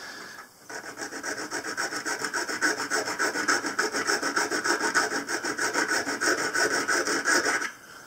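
Fine-cut hand file rasping on the steel kick of an old Ka-Bar slip joint pocket knife blade, in quick, even strokes. It starts about half a second in and stops just before the end. The file is taking metal off the kick so the closed blade will sit lower in the handle.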